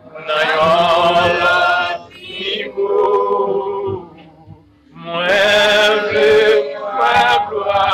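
Devotional singing in a chanting style: long held phrases with a wavering pitch, separated by short pauses.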